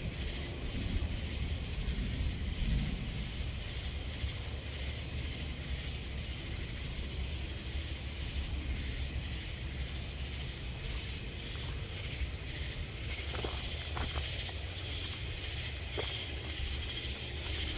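Night insects chirping in a steady, rhythmic chorus over a low rumble that swells in the first few seconds. A few faint clicks come near the end.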